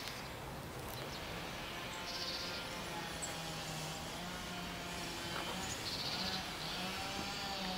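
Outdoor ambience: a steady background hum with a few brief bird chirps.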